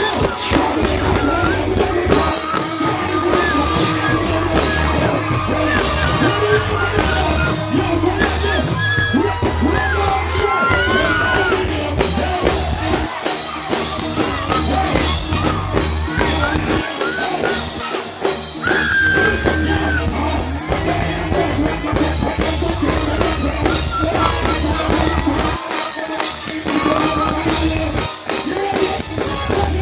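Live concert music: a band playing with a vocalist singing and shouting over it, and some crowd noise underneath.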